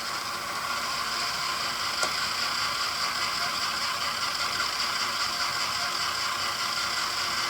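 Model locomotives' small electric motors and gearboxes running, a steady mechanical whirr, with a single click about two seconds in.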